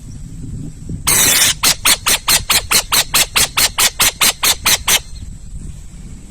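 An owl giving a harsh, rasping call: one long screech, then a rapid series of about sixteen short rasping notes, about five a second, lasting about three and a half seconds.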